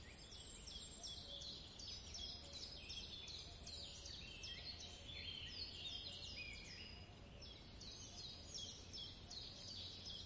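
Many small birds chirping at once, a dense run of short, high, falling chirps that overlap without pause, faint, over a steady low hum.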